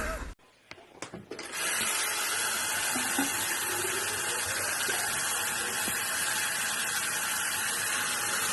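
Water running steadily from a tap, starting about a second and a half in, after a few faint knocks.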